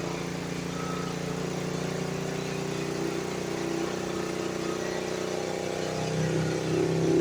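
EcoFlow Smart Generator 3000 Dual Fuel running steadily on propane while it charges a power station, growing a little louder near the end.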